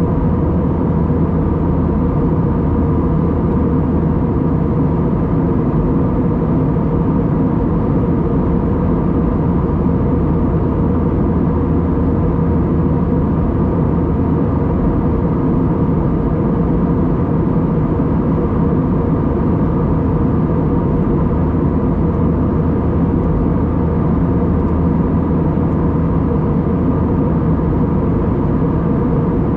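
Steady drone of an Airbus A320-232's IAE V2500 turbofan engines and airflow heard inside the passenger cabin: a deep, even rumble with a faint steady hum over it.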